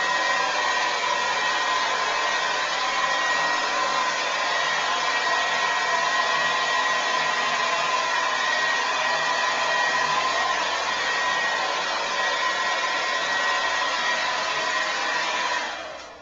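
Remington Shine hair dryer blowing steadily, a loud rush of air with a constant whine in it, switched off near the end.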